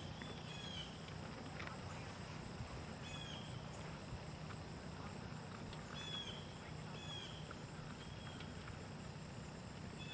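Outdoor ambience: birds giving short, high, falling chirps every second or few over a steady low hum.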